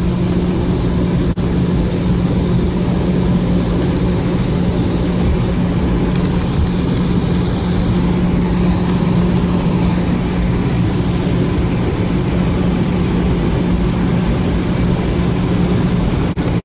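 Cabin noise of an Airbus A319 taxiing after landing: the engines running at idle with a steady hum under an even rush of air.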